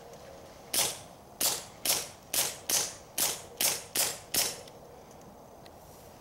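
Nine suppressed .22 LR pistol shots in quick succession, about two to three a second, from a Ruger Mark III 22/45 Lite fitted with a SilencerCo Sparrow suppressor. The firing stops after about four and a half seconds.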